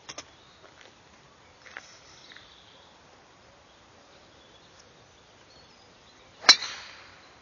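A golf driver striking a teed ball about six and a half seconds in: one sharp crack with a brief ringing tail, a decently struck tee shot. A few faint clicks come before it.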